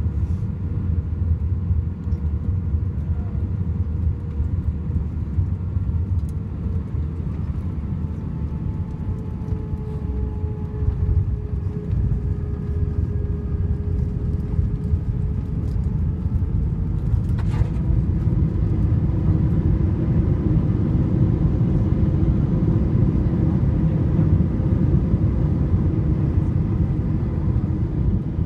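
Airbus A320 cabin noise during landing: a steady rumble of engines and airflow, with engine tones slowly shifting in pitch. About two-thirds of the way through comes a short sharp thump as the wheels touch down, and then the engine noise grows louder and rises in pitch as reverse thrust spools up.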